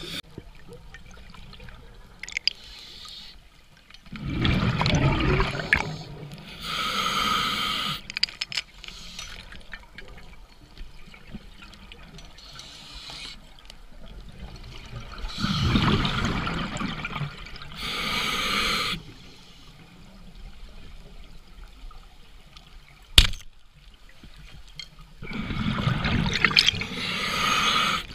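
Open-circuit scuba regulator breathing underwater, about every 11 seconds: a loud bubbling rush of exhaled air, then a shorter whistling hiss of inhalation through the regulator. A single sharp snap about 23 seconds in is the loudest sound.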